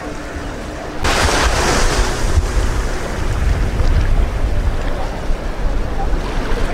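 Wind buffeting the microphone over the wash of surf at the water's edge, suddenly louder about a second in.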